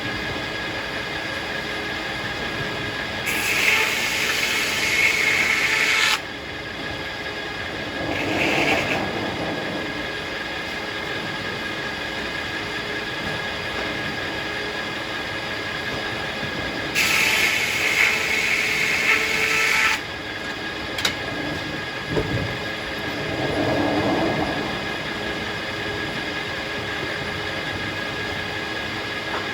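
Circular sawmill running with a steady hum, its blade cutting through hackberry log twice: two loud, hissing passes of about three seconds each, a few seconds in and just past the middle. Two softer swells follow each cut.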